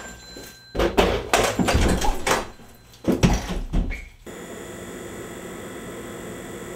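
Hurried thuds, knocks and scuffs of a chair being shoved aside and a door being banged, in two bursts. About four seconds in they cut off and give way to a steady electrical hiss and hum.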